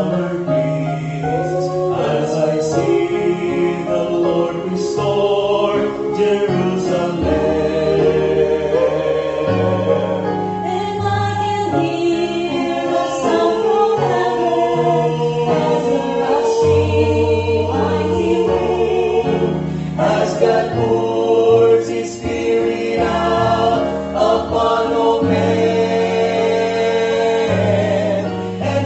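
Vocal quartet singing a gospel song in close harmony, several voices sustaining and moving together over held low notes.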